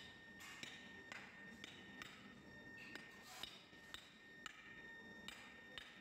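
Faint, sharp light taps, about two a second at an uneven pace, over a faint steady high-pitched tone.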